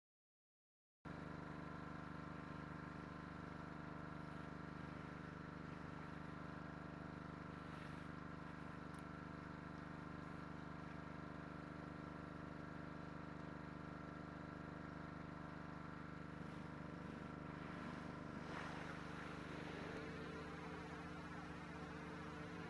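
Pressure washer running at a steady pitch, a hum of many even tones; a hiss of spray joins near the end.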